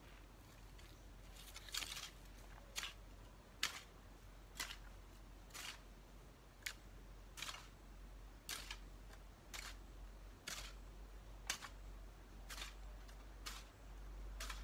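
Hoe strokes chopping and scraping into garden soil, a short sharp strike about once a second, beginning about two seconds in.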